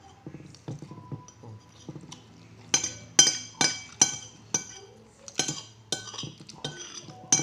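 Metal spoon clinking against a plate while eating: soft taps at first, then from about three seconds in a run of sharp, ringing clinks, about two a second.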